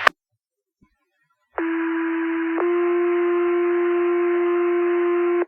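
Two-tone sequential fire pager alert over a radio channel. One steady tone sounds for about a second, then steps straight to a second steady tone held about three seconds. This is the page that alerts Wingham's volunteer firefighters to a new call.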